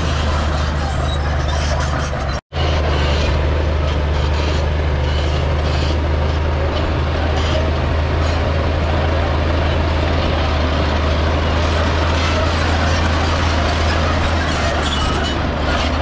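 Heavy diesel engine of earthmoving machinery running with a steady low drone under a noisy mechanical rattle; the sound cuts out for an instant about two and a half seconds in.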